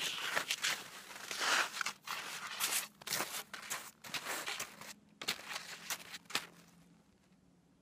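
Skate skis scraping and swishing on packed snow in a run of skating strides uphill, dying away near the end.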